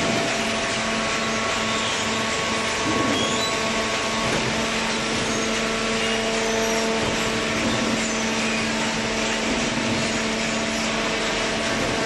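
Horizontal cardboard baler plant running: a steady mechanical hum of motors and hydraulics, a few constant tones over a broad rushing noise.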